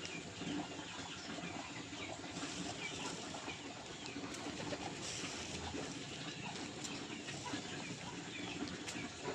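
A flock of domestic pigeons in their loft: low cooing that comes and goes, some wing flapping, and scattered higher chirps.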